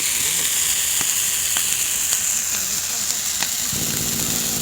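Hinoki (Japanese cypress) wood fire hissing, with sharp crackles and pops about every half second. About three-quarters of the way through, a low engine drone comes in underneath.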